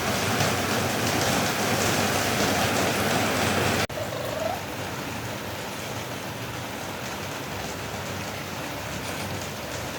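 Steady hiss of background noise that drops suddenly about four seconds in, with one faint, short, rising squeak just after, like a newborn kitten's tiny mew.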